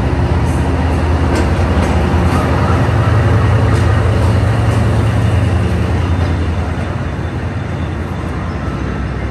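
Diesel locomotive of a Vietnam Railways passenger train running past close by along the platform. Its low engine drone swells to its loudest about four seconds in, then fades as the passenger coaches roll past.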